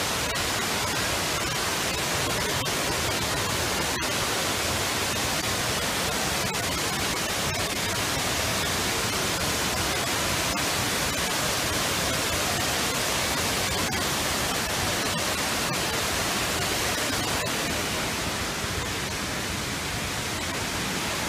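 Steady rush of a large waterfall heard close by, an even wash of falling water with no break, easing off a little near the end.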